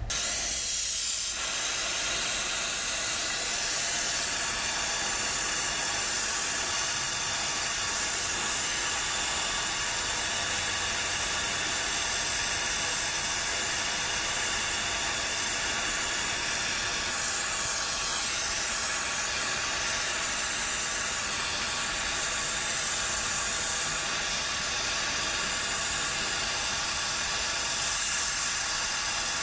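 Gas torch flame hissing steadily as it heats a copper refrigerant line joint for soldering; the hiss starts suddenly at the outset and holds an even level.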